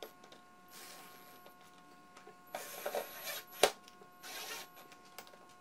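Cordless drill running in three short bursts, driving small screws into a brass piano hinge on a wooden tabletop, with one sharp click a little after the middle.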